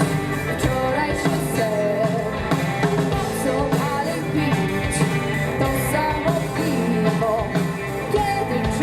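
Live rock band playing a song: drums and bass keep a steady beat under a wavering melodic lead line.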